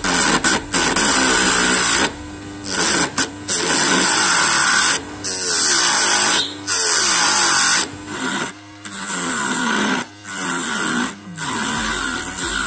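Homemade lathe driven by a small 12 V DC motor, with a hand-held blade scraping the spinning wood in repeated strokes of a second or two and brief gaps between them. The motor's whine dips and recovers in pitch with the strokes.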